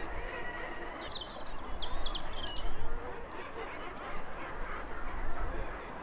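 Seabird colony calling: a dense din of harsh honking calls from the guillemots crowded on the cliff ledges. A few short high chirps stand out about a second in, over a low rumble of wind on the microphone.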